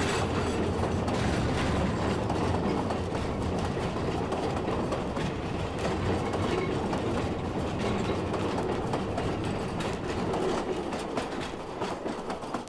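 Steam train of the Bonhomie and Hattiesburg Southern Railway rolling past, its wheels clattering over the rail joints, steady and loud, then starting to fade near the end. Heard as a 1961 recording played back from a vinyl record.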